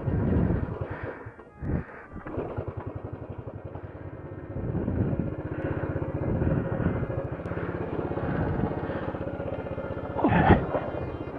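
Honda CT90's small single-cylinder four-stroke engine running at a fast, uneven idle with swells of throttle, stumbling briefly about two seconds in. The engine is cold, and the owner blames its poor running until warm on water or junk in the fuel tank.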